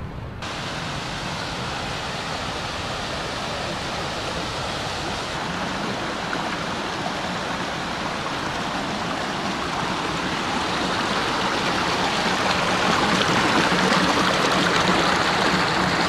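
Mountain stream rushing and splashing over rocks, a steady dense water noise that cuts in abruptly just after the start and grows gradually louder.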